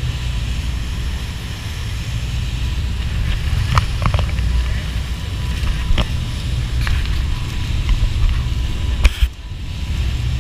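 Wind buffeting the microphone on a moving tour boat, over the rumble of the boat and the rush of its churning wake. A few sharp knocks cut through, the loudest about nine seconds in, after which the rumble briefly drops away.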